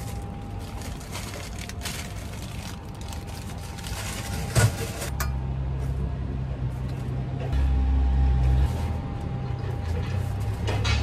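Paper rustling and light clinks and knocks from bread rolls in a paper bag and other items being handled, over a faint steady hum, with one sharp knock about halfway. After that, background music with a deep bass line comes in.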